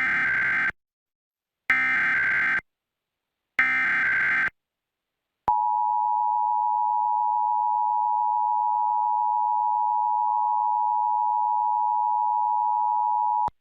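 Emergency Alert System SAME header: three short bursts of shrill digital data screech, about two seconds apart. After a pause comes the EAS attention signal, two tones sounded together as one steady, harsh beep held for about eight seconds and cut off sharply. Together they open an EAS broadcast alert, here a required monthly test.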